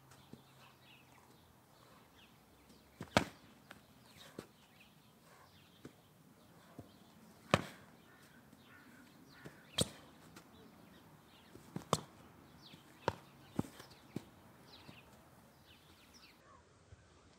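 Foam training sabres striking in sparring: about six sharp slaps at irregular intervals, the blades meeting each other or landing hits. Faint bird chirps in the background.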